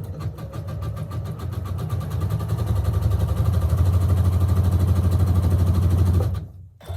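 Sewing machine running a test of satin stitch, the needle going up and down in fast, even strokes. It speeds up over the first few seconds, runs steadily, then stops abruptly about six seconds in.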